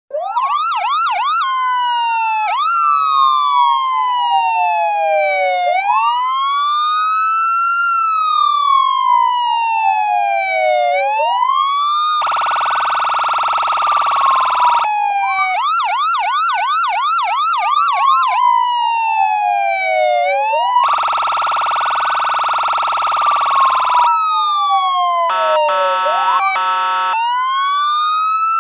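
Electronic American police car siren played through an amplifier, switching between patterns: fast yelping sweeps, slower rising and falling wails, and twice a steady harsh buzzing horn tone lasting a few seconds. Near the end it breaks into a rapid stuttering pattern before going back to a rising wail.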